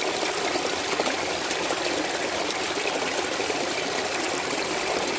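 A brook running steadily over stones, a continuous babbling and trickling of water.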